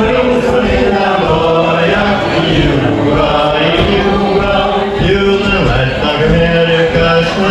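A group of voices singing a Gaelic milling song together: a chant-like melody with long held notes.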